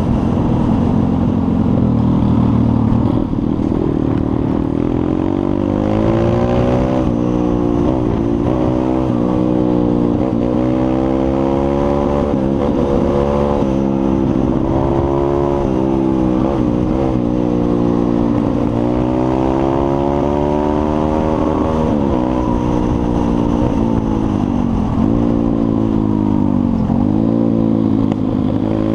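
A pit bike's small single-cylinder four-stroke engine is being ridden hard and heard up close. Its pitch climbs and drops again and again as it is run up through the gears and the throttle is rolled off and reopened.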